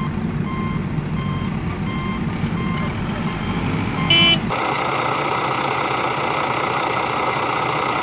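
Dubbed heavy-vehicle sound effects: a diesel engine rumbling under a reversing alarm that beeps about twice a second, then a short horn blast about four seconds in, after which a louder, hissing machine noise takes over.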